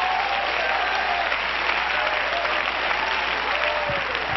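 Congregation applauding steadily, with scattered shouts from voices rising over the clapping.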